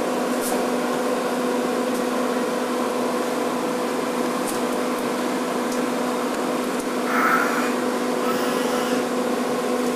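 A steady mechanical hum over a noisy hiss, with a short brighter sound about seven seconds in.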